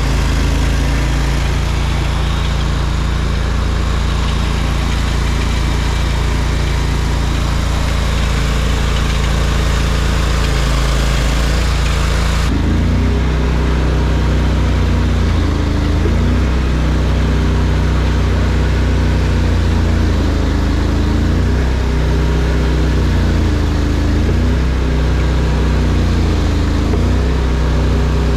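ARGO amphibious off-road vehicle's engine running steadily under way. About halfway through the hiss over it drops off suddenly, and from then on the engine's pitch rises and falls again and again as the throttle is worked.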